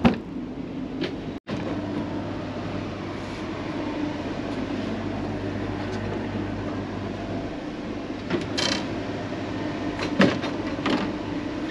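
Steady low mechanical drone of a steel motor yacht's machinery, with a few short clicks and knocks about eight to eleven seconds in.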